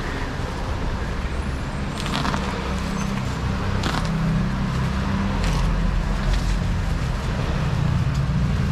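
A parcel being unwrapped, with a handful of short rips and crinkles of packaging, over a steady low rumble.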